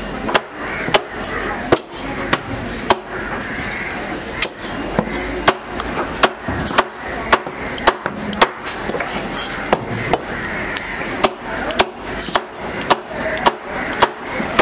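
Heavy fish knife chopping through trevally flesh and bone onto a wooden cutting block: sharp, evenly paced chops about twice a second.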